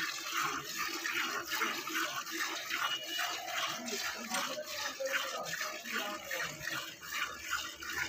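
Milk squirting into a steel pail as a buffalo's rear teats are hand-milked, a steady rhythm of short hissing squirts.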